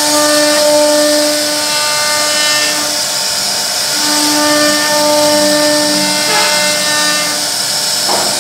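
CNC router spindle carving wood, a steady high hiss of cutting with a pitched whine that drops out twice and comes back.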